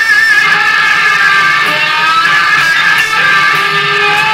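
Electric guitar being played, with held, ringing notes and a few short slides in pitch.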